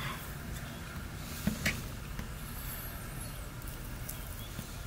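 Kitchen knife slicing raw beef into strips on a wooden cutting board, with two short knocks of the blade against the board about a second and a half in, over a steady low hum.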